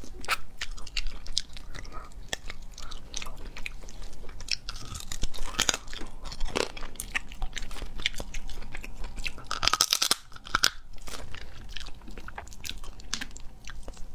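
Close-miked chewing and crunching as a person eats spicy cooked crab claws, with many sharp clicks and crackles of mouth and shell sounds. A louder crunching burst comes about ten seconds in.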